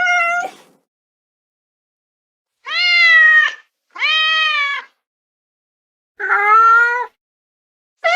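Domestic cat meowing: a string of separate meows, each under a second long, with short pauses between them.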